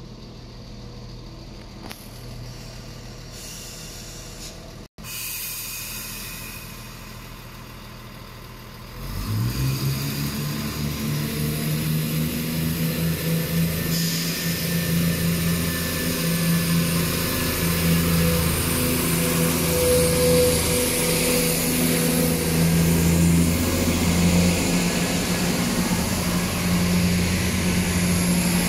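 Diesel underfloor engines of a Class 170 Turbostar multiple unit idle quietly, then about nine seconds in power up and run steadily under load with a low hum as the train pulls away.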